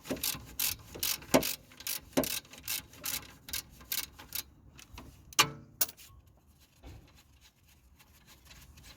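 Socket ratchet clicking in an even series, about two and a half clicks a second, as a 14 mm brake caliper bolt is undone. About five seconds in there is a single louder metal clink with a short ring.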